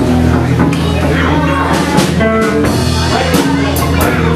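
Live blues band playing an instrumental passage: bass guitar, guitar and drum kit, with sharp drum and cymbal hits in the second half.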